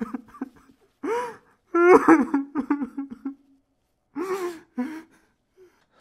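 Short human voice sound-effect clips: gasp-like exclamations and other wordless vocal sounds, in several separate bursts with silent gaps between. One near the middle breaks into quick repeated pulses.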